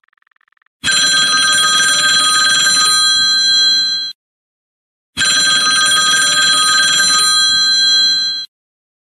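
A bell ringing in two long rings of about three seconds each, with a pause of about a second between them.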